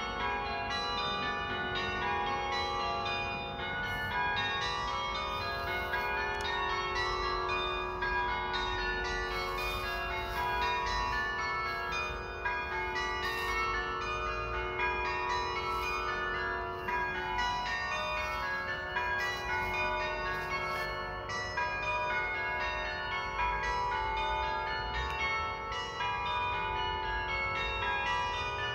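Church bells ringing from the tower, struck one after another in a fast, unbroken run of overlapping ringing tones, in the manner of change ringing.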